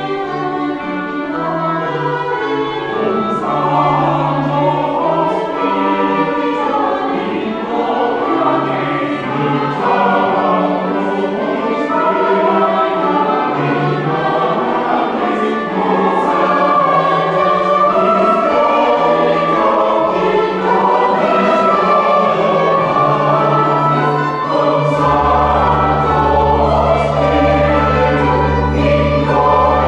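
Church choir singing with organ accompaniment. Deep held organ bass notes come in strongly about 25 seconds in.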